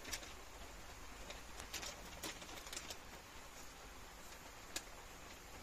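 Light rain falling, a steady faint hiss, with a few short sharp ticks scattered through it and one near the end.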